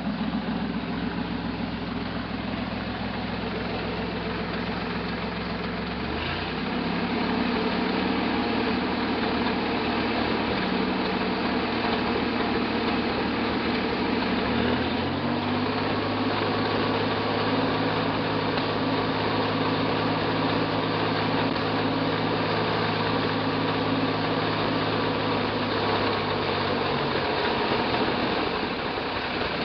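Buick 225 V6 in a 1968 Jeepster Commando running at idle, its speed stepping up twice and held higher before dropping back near the end. It still has a one-cylinder misfire and a mechanical noise, which the owner takes for mechanical damage, likely in a rear cylinder.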